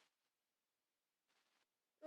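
Near silence: room tone, with two very faint short noises, one at the start and one about a second and a half in.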